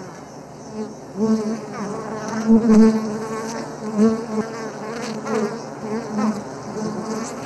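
A swarm of wild honeybees buzzing in alarm as a flaming torch scorches them and their hive is raided. The buzz swells and fades again and again as bees fly close past.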